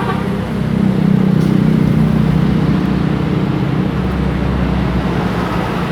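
Bus engine running with a steady low drone, getting louder about a second in.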